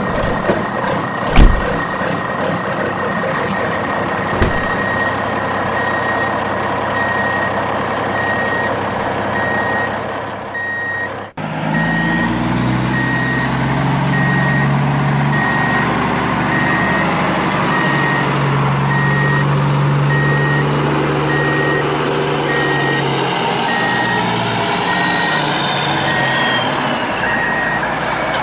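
Truck sound effect: a reversing alarm beeps steadily over a running diesel engine. About eleven seconds in, the sound cuts to a lower engine hum with a whine that rises and falls, and the beeping comes back near the end.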